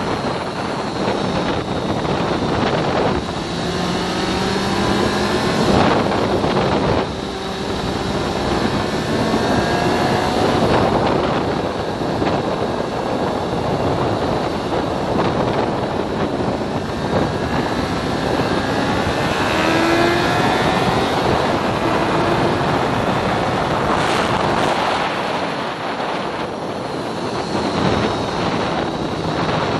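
Kawasaki Z750R's inline-four engine running at speed on a track, its pitch rising several times as it pulls through the gears and dropping as the throttle closes. Heavy wind rush on the microphone runs under it.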